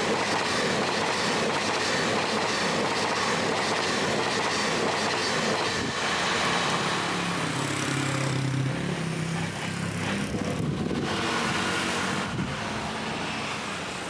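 Taiwan Railways EMU3000 electric multiple unit running past at speed: a steady rush of wheel and rail noise. It thins out about halfway through, and a low drone comes in.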